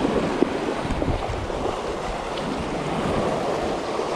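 Small waves washing onto a sandy beach, with wind buffeting the microphone. A brief knock sounds about half a second in.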